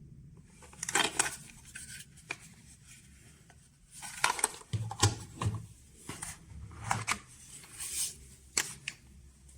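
Irregular clicks, taps and rustles of objects being handled, in a few short clusters.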